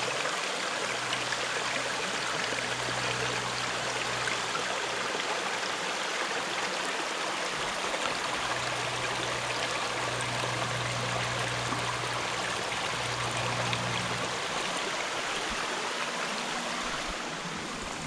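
Stream flowing, a steady, even rush of running water.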